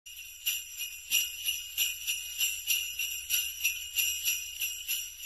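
Jingle bells shaken in a steady rhythm, about three shakes a second, a bright high jingling.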